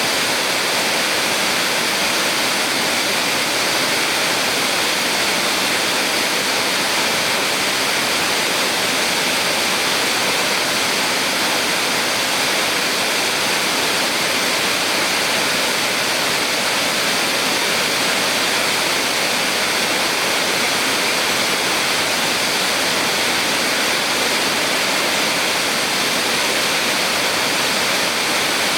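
Small waterfall on a mountain stream: a steady, loud rush of falling and splashing water that does not change.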